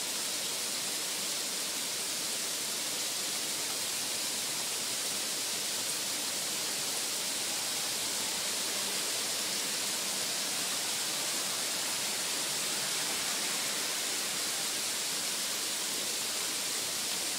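Steady, even rain noise, a continuous hiss strongest in the high range.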